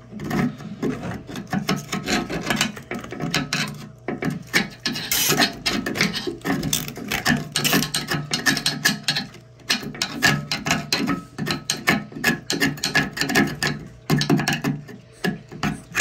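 Screwdriver scraping caked-on grime out of a corroded metal sink drain, in quick irregular rasping strokes with a few short pauses.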